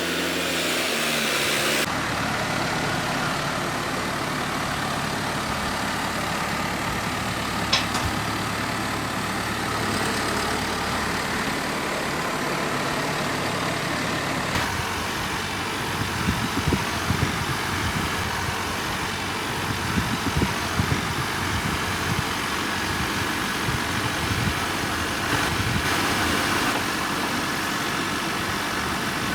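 Tractor engine running steadily. Irregular low thumps and rattles come through in the second half.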